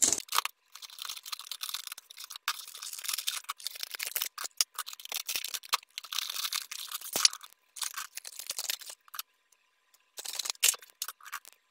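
Cheap Harbor Freight scissors cutting open product packaging: an irregular run of sharp snips and crackles, broken by a pause of about a second near the end before more cutting.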